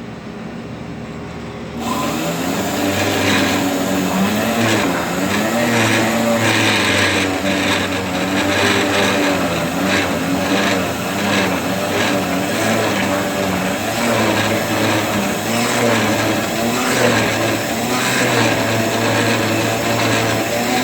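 Dairy Queen Blizzard spindle mixer starting about two seconds in and running, blending a cup of ice cream with pecans, caramel and cone coating; the motor's pitch wavers up and down as it churns.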